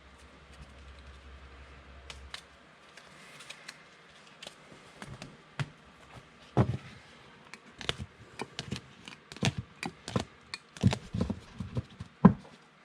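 Trading cards and plastic card sleeves being handled on a table: faint rustling at first, then irregular sharp taps and clicks that grow busier after about five seconds as the cards are sleeved and gathered.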